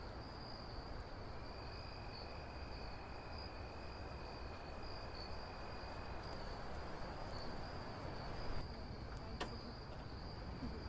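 Crickets chirping in a steady, high, pulsing trill over a faint background hiss, with a single sharp click near the end.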